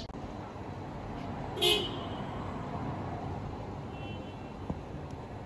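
A single short vehicle horn toot about a second and a half in, over steady background noise; a faint high beep follows a couple of seconds later.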